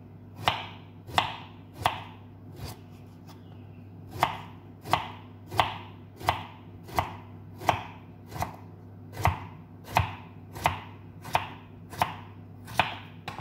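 Kitchen knife slicing a peeled vegetable into rounds on a wooden cutting board, each cut ending in a sharp knock of the blade on the board. Four cuts, a pause of about a second and a half, then a steady run of cuts about every three-quarters of a second.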